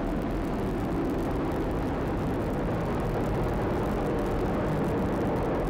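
Atlas V rocket's RD-180 main engine and solid rocket boosters firing during ascent: a steady rushing noise with a strong low rumble, unchanging throughout.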